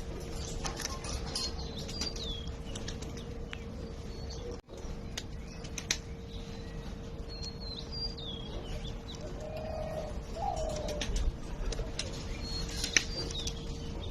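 Domestic pigeons flapping their wings, with a low warbling coo about ten seconds in and small birds chirping now and then over a steady faint hum.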